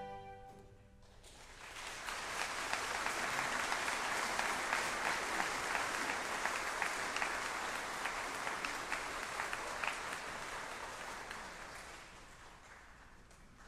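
A final string and harpsichord chord rings away, then an audience applauds. The clapping builds about two seconds in, holds, and fades out near the end.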